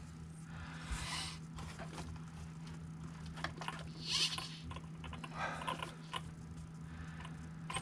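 Soft rustling and scraping handling sounds, a few times, as an RC truck's suspension is pressed down and released by hand to check its sag. A steady low hum runs underneath.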